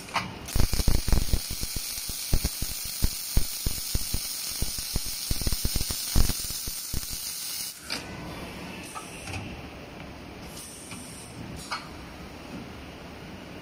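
Electric arc welding torches on an automatic beam welding machine striking up and welding, a loud hissing sizzle full of crackles and pops. The arcs cut off suddenly at about eight seconds, leaving a quieter machine hum with a few clicks.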